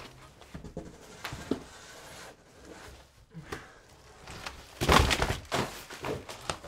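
Cardboard box and boxed products being handled and set down on a table, with scattered knocks and rustles and a louder thump and rustle about five seconds in.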